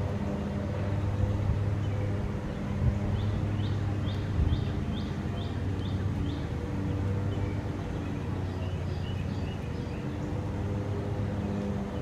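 A steady low machine hum runs throughout. From about three seconds in, a small bird gives a quick series of about nine high chirps, roughly three a second, with a few fainter high notes a little later.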